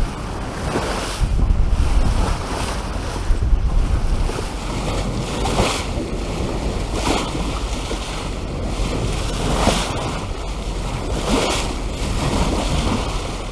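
Wind buffeting the microphone over the rush of water past the hull of a sailboat under way, with waves splashing at uneven intervals.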